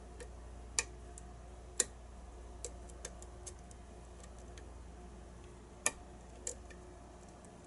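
Lock pick working the pins of a challenge lock during single-pin picking: irregular light metallic clicks, three of them sharper than the rest, over a steady low hum.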